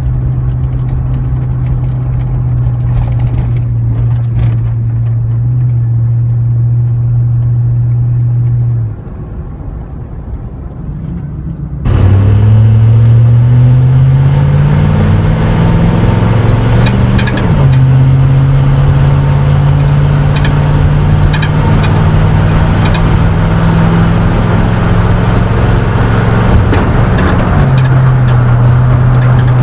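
5.3L V8 of a Chevrolet Silverado through a Cherry Bomb muffler, holding a steady exhaust drone. It eases off about nine seconds in, then accelerates hard about twelve seconds in, its pitch climbing before dropping at two upshifts and settling back into a steady drone.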